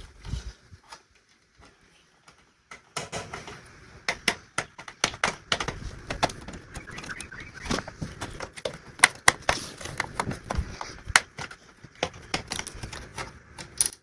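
Plastic clips and casing parts of a radio-cassette CD player clicking and knocking as they are pried and unclipped by hand. The clicks come in a rapid, irregular series, starting about three seconds in after a quieter stretch.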